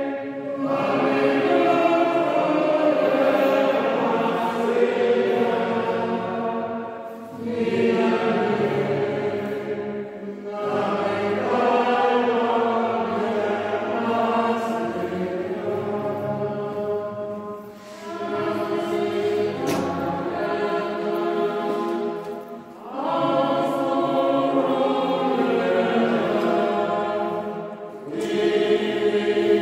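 Group of voices singing a church hymn together, in long phrases of several seconds with brief pauses between them.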